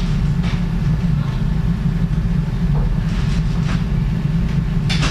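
Steady low hum of operating-room equipment, with a few faint short clicks of surgical instruments.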